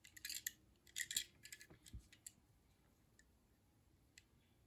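Faint clicks and light handling noise from small die-cast model cars being turned over and set down, mostly in the first two seconds, then only a couple of faint ticks.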